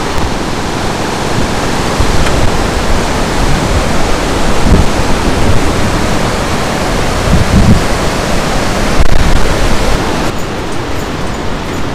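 Rushing river rapids: a loud, steady roar of white water, with a few low gusts of wind buffeting the microphone about halfway through.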